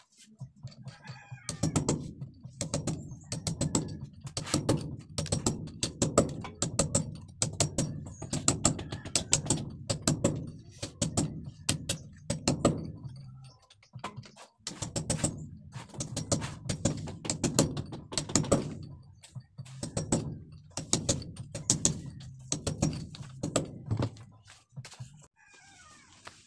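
Hammer striking a cold chisel against a concrete hollow-block wall in quick runs of sharp blows, with a short pause about halfway through: cutting a channel in the wall for electrical wiring.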